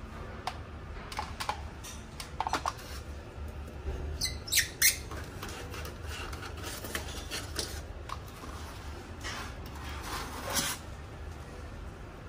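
Polystyrene foam packaging squeaking and creaking as an iron is pulled out of it, with scattered light knocks and rustles. The sharpest squeaks come about four and a half seconds in and again about ten seconds in.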